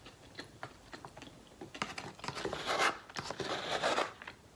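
Close-up chewing of a Chipotle bowl: a run of small wet mouth clicks and crunches, busier from about two seconds in.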